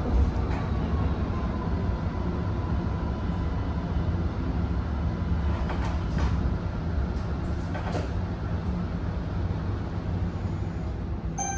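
Cabin sound of an Alstom Citadis X05 light rail tram in motion: a steady low rumble of the wheels on the rails, with a faint motor whine and a few light clicks and knocks. A short pitched tone sounds right at the end.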